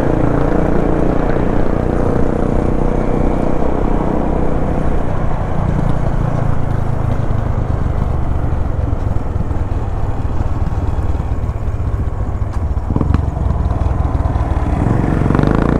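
Motorcycle engine running steadily at low road speed, with road noise around it. A single short click sounds near the end.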